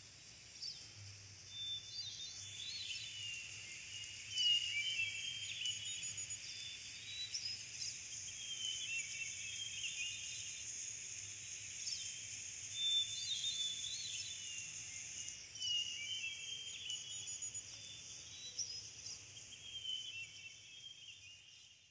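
Small birds chirping and whistling in short phrases over a steady high hiss: a nature ambience of birdsong. It fades out near the end.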